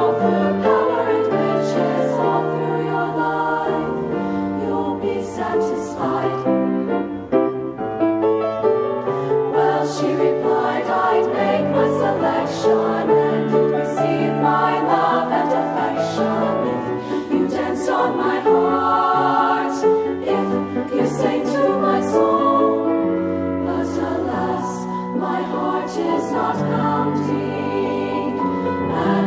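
High-school women's choir singing, several voice parts held together in sustained harmony.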